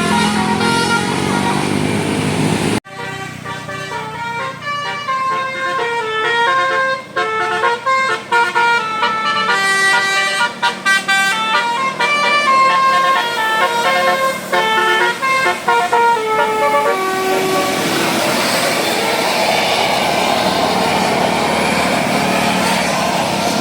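Indonesian bus telolet horn, a multi-tone horn, playing a tune of short stepped notes that jump up and down in pitch. The sound cuts abruptly about three seconds in to another horn tune. In the last several seconds the notes give way to a rougher, noisier sound.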